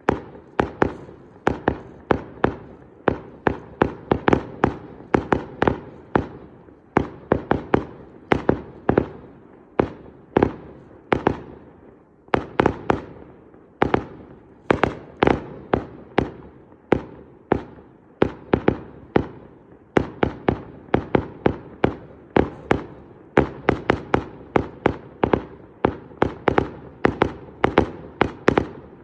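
Fireworks display: a continuous rapid barrage of sharp bangs from bursting fireworks, about two to three a second, each with a short echoing tail.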